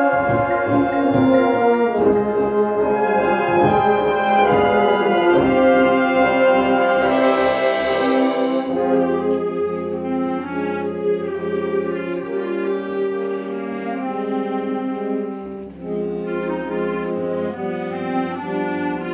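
Concert wind band of clarinets, saxophones and brass playing live: full held chords that build to a swell about eight seconds in, then quieter held chords over low bass notes.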